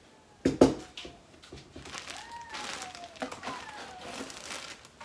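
A single thump about half a second in as a gel ice pack is set down. This is followed by the crinkling and rustling of the plastic-wrapped insulated liner as hands dig into the delivery box.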